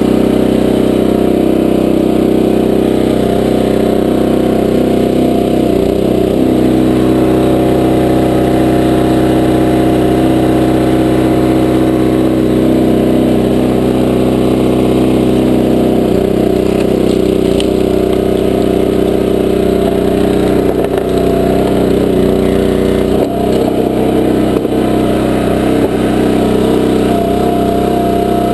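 Small gasoline engine of a 20-ton horizontal log splitter running steadily while the splitter pushes a log through its wedge, the engine note shifting slightly now and then as it works.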